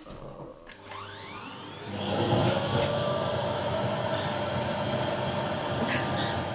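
Vacuum cleaner switched on: its motor spins up with a rising whine over about a second, then runs steadily and loudly.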